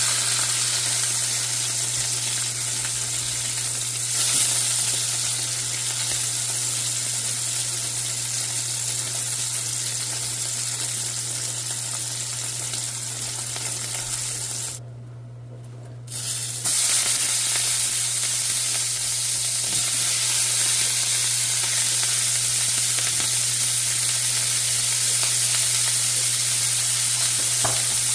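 Food sizzling as it fries in a pan: a steady hiss with a low hum beneath it. The hiss drops out for a moment about fifteen seconds in, then resumes.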